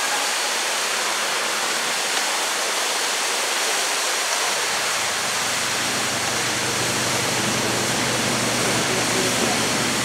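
Manai Falls, a waterfall plunging into the gorge pool, making a steady, even rush of falling water. A low hum joins in about halfway through.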